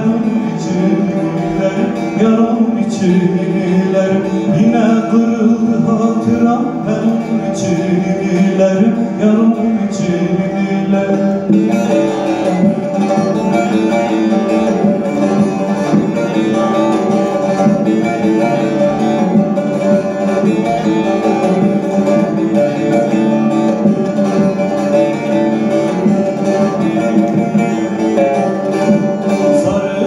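Bağlama (long-necked Turkish saz) played solo: a continuous plucked melody.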